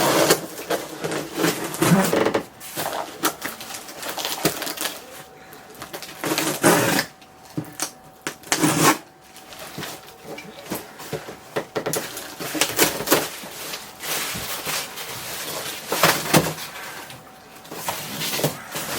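Cardboard box and packing material being handled and pulled open by hand: irregular rustling, crinkling and sharp clicks and taps, with a few louder handling bursts.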